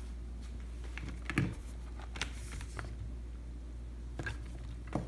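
Light scattered clicks and taps of a MacBook Pro laptop being handled and its lid opened, over a steady low hum. The loudest tap comes about a second and a half in.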